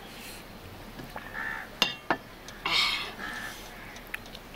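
Crows cawing a few times in the background, with two sharp clinks of dishware on the table about two seconds in.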